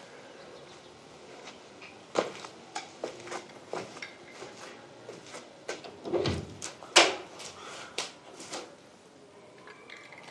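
A wooden door being handled and opened, with steps: a run of irregular knocks and clicks, the loudest bangs just past the middle.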